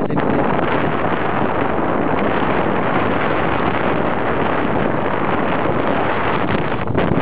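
Steady wind rushing over the microphone on open sea.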